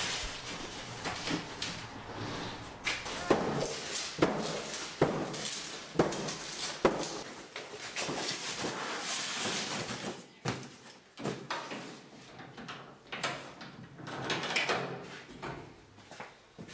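A large cardboard box being carried and handled through a door and along a corridor: knocks, clunks and scraping of the box and doors. A run of sharp knocks comes about once a second a few seconds in, with scattered knocks later.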